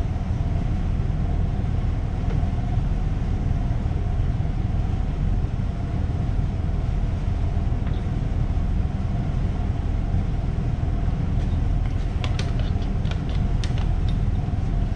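A steady low drone, with a few faint clicks and light scrapes near the end.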